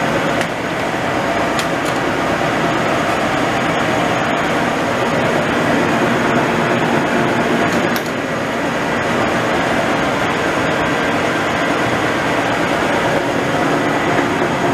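Leblond Regal 19-inch engine lathe running under power: a steady mechanical drone of its headstock and feed gearing, with the carriage feeding slowly along the bed.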